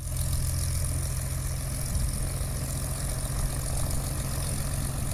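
Small high-wing tailwheel airplane taxiing, its piston engine running steadily.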